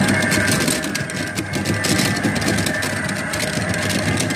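Coin-operated kiddie speed-boat ride running: a steady engine-like hum with rapid irregular clicking over it.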